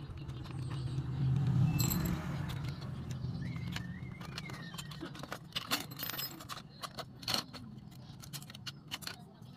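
Clicks and light rattles of hard plastic parts on a toy RC bulldozer being handled and fitted, in a quick irregular run through the second half, over a low hum that is strongest in the first few seconds.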